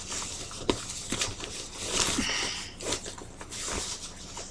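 Rustling and handling of a fabric nappy bag and its contents, with short clicks and a zipper being worked on a pocket.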